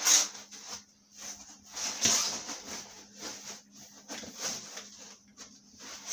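Plastic packaging wrap rustling and crinkling in irregular bursts as it is pulled and bunched off a boxed fiber laser machine.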